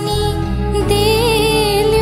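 Background music: a held melody over a steady low bass, with the lead line wavering in vibrato about halfway through.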